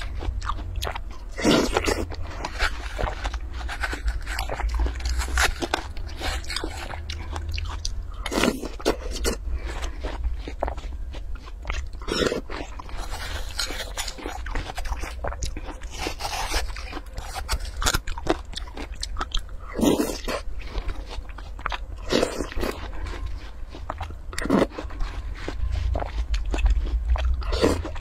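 Close-miked eating of watermelon: a metal spoon digging and scraping into the flesh of a halved melon, and chewing of the scooped pieces. The sharp bites and scrapes come at irregular intervals, a second to a few seconds apart, over a steady low hum.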